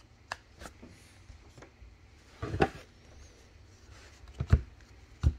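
Trading cards handled in the fingers: a few light clicks and taps as the stack is squared and cards are slid apart, with a louder scraping rustle about halfway through.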